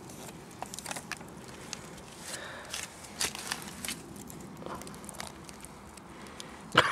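Small crackles, snaps and crunches of dry twigs, roots and crumbly soil as an earthball fungus is dug at and broken open with a blade, with a sharper knock near the end.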